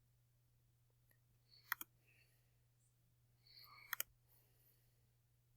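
Computer mouse clicking: two quick double clicks, one about a second and a half in and another about four seconds in, over a faint steady hum.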